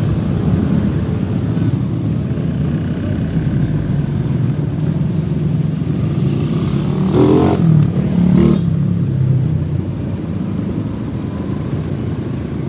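Road and traffic noise heard from a moving electric tricycle: a steady low rumble, with a motorcycle engine revving up about seven seconds in and a couple of sharp knocks. A thin high whine comes and goes in the second half.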